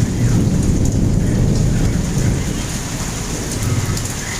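Rolling thunder over steady heavy rain. The low rumble comes in suddenly at the start and slowly fades toward the end, while the rain hiss carries on underneath.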